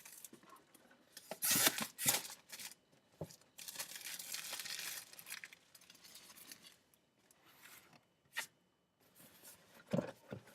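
Packaging being torn open on a plastic model kit box: short rips about a second and a half and two seconds in, a longer tearing rush around four seconds in, then a sharp click and a few handling knocks near the end.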